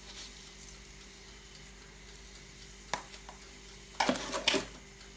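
Papaya pulp sizzling faintly in a nonstick pan on the stove. A single tap comes about three seconds in, and near the end a utensil clatters and scrapes against the pan in a short run of knocks.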